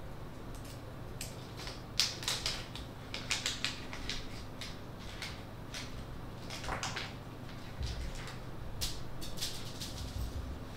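A run of light, irregular clicks, taps and crinkles from hands handling a small clear plastic parts bag and small hardware on a desk. The clicks come thickest from about two seconds in and again near the end.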